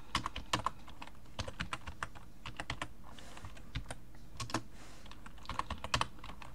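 Typing on a computer keyboard: irregular runs of key clicks with short pauses, as a word is typed into a text editor.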